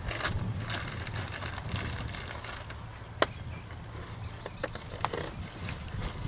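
Dressage horse moving over sand arena footing: soft, muffled hoofbeats with a few sharp clicks, the loudest about three seconds in, over steady low background noise.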